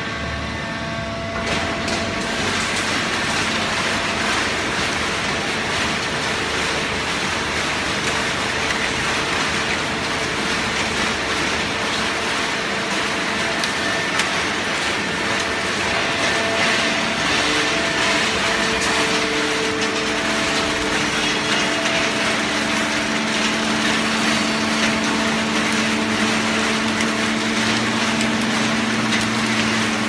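A fully automatic horizontal hydraulic baler for waste cardboard running: steady machine noise with a constant hum from its hydraulic power unit. It grows louder about a second and a half in, and a lower hum comes up stronger in the last third.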